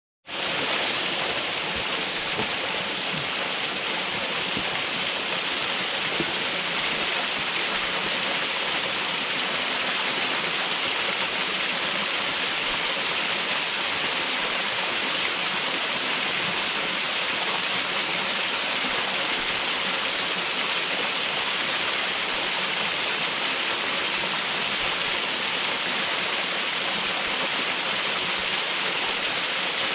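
Waterfall pouring steadily: an even rushing and splashing of falling water with no letup.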